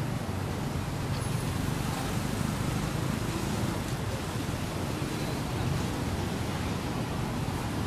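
Steady low rumble with a hiss of outdoor background noise at an even level, with a few faint high chirps.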